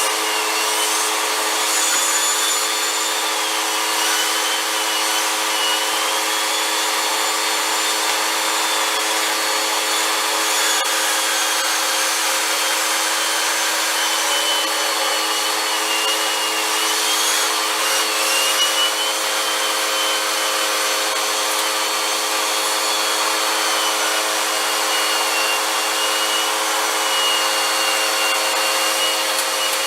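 Vacuum cleaner running steadily, its motor giving a high whine that wavers a little in pitch over a constant rush of air.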